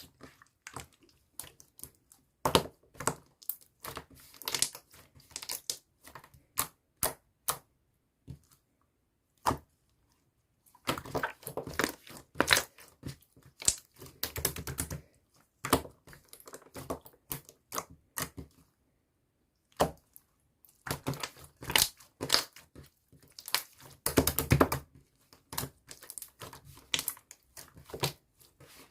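Irregular clusters of short clicks, taps and crinkling, the sound of small objects and packaging being handled, with brief quiet gaps between.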